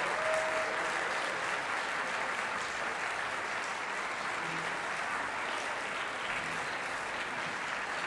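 Audience applauding steadily, easing off slightly toward the end, with one brief shout near the start.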